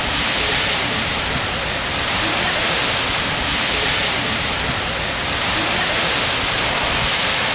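Hurricane winds and heavy rain: a loud, steady rushing hiss that swells slightly now and then.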